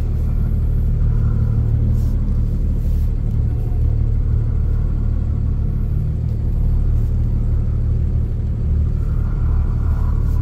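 Cummins inline-six diesel engine of an International HV607 utility truck running steadily at low speed, heard from inside the cab as the truck rolls slowly.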